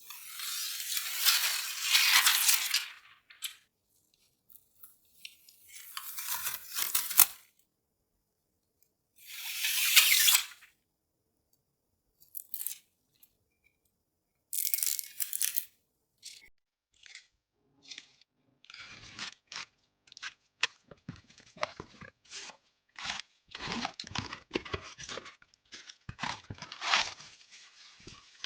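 Packaging being torn or peeled in three long rasping strokes, with a shorter one a few seconds later, then a busy run of small clicks and rustles as parts and packaging are handled.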